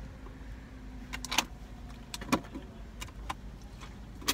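Small items being handled inside a car while payment is got ready: a scattered series of sharp clicks and rattles over a low, steady cabin hum, with a cluster of clicks near the end.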